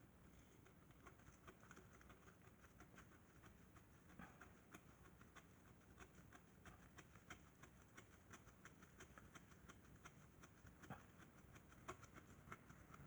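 Near silence with faint, irregular small clicks of 10 mm bolts being threaded by hand into a transmission shift solenoid.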